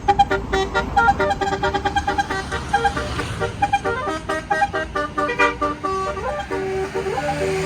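Tour bus's basuri telolet horn playing a fast tune of short pitched notes, with a few longer held notes near the end.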